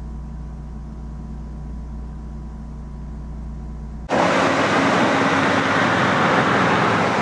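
A low, steady electrical hum with a faint high tone, of the kind that goes with a video test pattern. About four seconds in it cuts suddenly to a much louder, steady rushing noise of outdoor street ambience.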